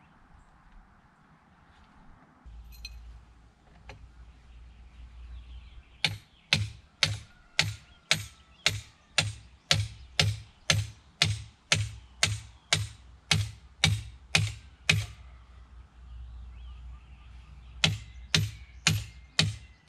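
Hammer blows driving the connecting rod through the joint links of an over-the-tire track to join its ends. Steady strikes about two a second, each with a short metallic ring, stop for a couple of seconds and then start again near the end.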